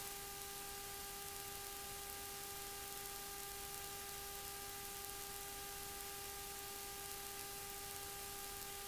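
Steady hiss with a faint, constant electrical hum carrying a string of even overtones: the recording's background noise, unchanged throughout.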